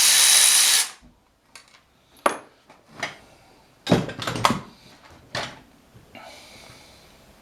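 Milwaukee power ratchet running, cutting off about a second in, then a handful of sharp metallic clinks and clanks as bolts and engine parts are handled.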